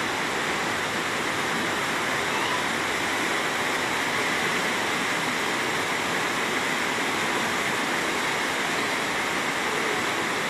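Fast-flowing floodwater rushing over a road, a steady, unbroken rush of turbulent water.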